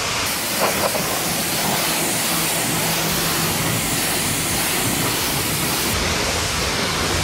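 Pressure-washer lance spraying a steady jet of water onto a car's door and fender, rinsing the washed paint with an even hiss.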